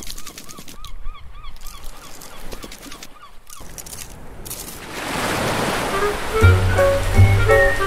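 Cartoon sound effects for an animated crab: a run of short squeaky chirps, about three a second, with light ticking, over the first second and a half. About five seconds in, a rising wash of noise like a breaking wave swells, and music with a bass line and bright notes starts near the end.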